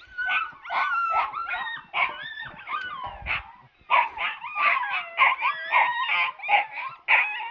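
Alaskan husky puppies yipping and whining, several high voices overlapping, their calls sliding up and down in pitch, with a brief lull about halfway through.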